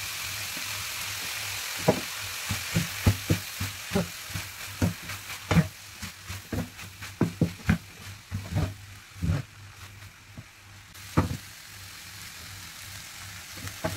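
Rice frying and sizzling in a pan as it is stir-fried with chicken, peas and carrots. A wooden spatula knocks and scrapes against the pan many times between about two and eleven seconds in.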